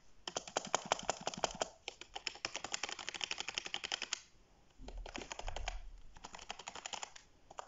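Fast typing on a Logitech G213 Prodigy gaming keyboard's membrane keys: quick runs of soft key clacks in several bursts, with a short pause a little past the middle. It is kind of quiet.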